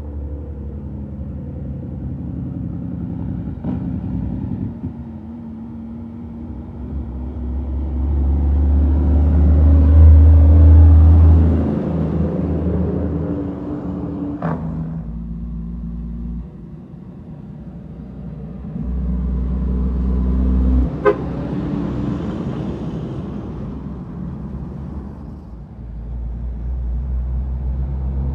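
Heavy dump trucks' diesel engines running as they pass one after another, swelling to loudest about ten seconds in and again around twenty seconds, with a few brief sharp sounds in between.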